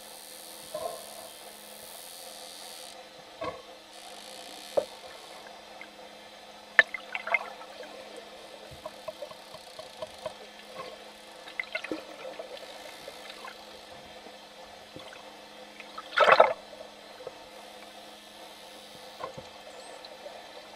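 Underwater sound close to a pod of bottlenose dolphins: scattered sharp clicks and pops over a steady low hum, a short run of crackles about seven seconds in, and one louder crackling burst about sixteen seconds in.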